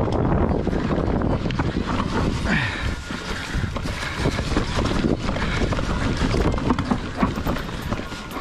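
Santa Cruz Megatower mountain bike riding downhill over a leaf-covered dirt trail: wind buffeting the microphone, tyres rolling through dry leaves, and many quick clicks and knocks from the bike rattling over bumps.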